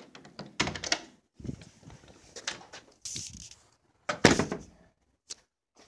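Rustling, clicks and knocks from a phone camera being handled and carried with its lens covered, with a loud thump a little after four seconds in.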